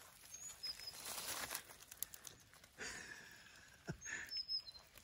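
A black plastic-mesh crayfish trap being handled and opened, with faint rustling and crinkling of the mesh and the stinging-nettle bait inside, and a sharp knock nearly four seconds in.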